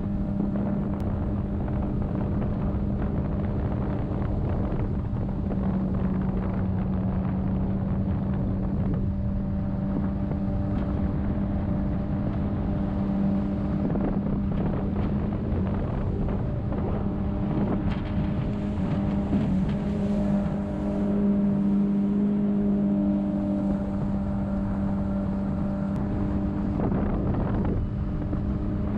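Jet boat's outboard motor running steadily underway: a constant engine drone that only swells a little now and then, with wind buffeting the microphone.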